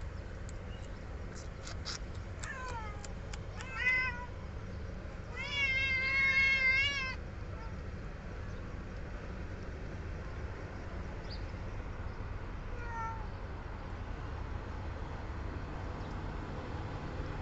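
Kittens meowing as they beg for food: a few short meows falling in pitch a few seconds in, then one long wavering meow of about a second and a half, the loudest, and later a faint short meow.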